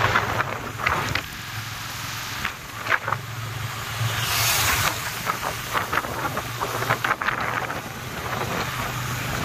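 Motorcycle engine running while riding, a steady low hum, with wind buffeting the phone's microphone in gusts.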